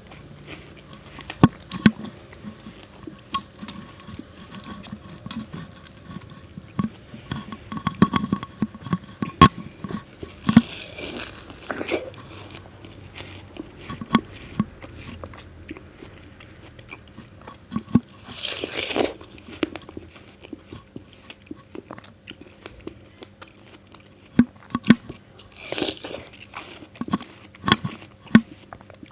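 Close-miked eating of watermelon: crisp bites and chewing, with many sharp clicks and a few longer crunching spells, about 11, 19 and 26 seconds in.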